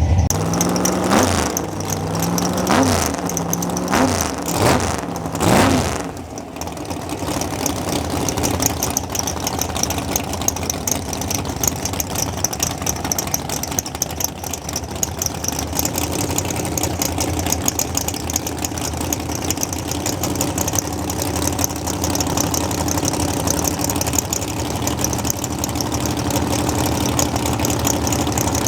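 A car engine revved in about four quick blips, each rising and falling in pitch, then running steadily for the rest of the time.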